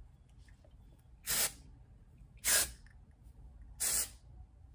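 Aerosol can of Osensia volumizing texture spray giving three short spray bursts about a second and a quarter apart.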